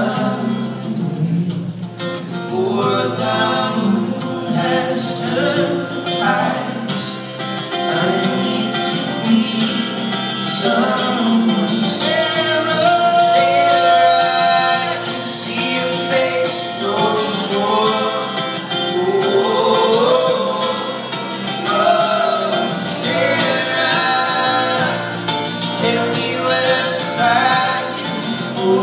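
Folk song sung live by two voices in close harmony over strummed acoustic guitar, with one long held note midway.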